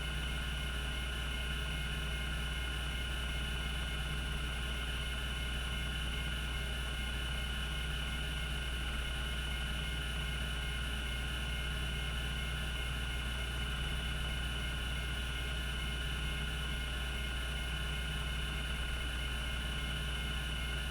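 Cogito Systems CG-912 5.25-inch MFM hard drive spinning steadily at speed: a low spindle-motor hum with a steady high whine, and no seek clicks.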